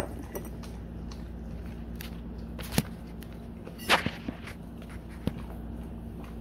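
Alaskan Malamute eating waffle pieces off a tile floor: scattered sharp smacks and clicks of its mouth and licking. The loudest is a quick pair about four seconds in.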